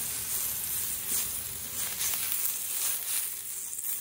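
Butter and olive oil sizzling steadily on the hot steel top of a 17-inch Blackstone griddle as a block of butter is smeared across it.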